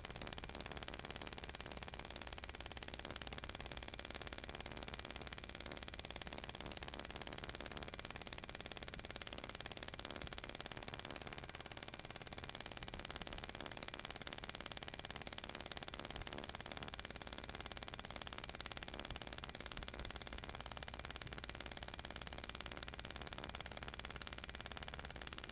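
Steady mechanical run noise of a home-movie film projector: an even hiss with a fast, fine clatter and a faint low hum, unchanging throughout.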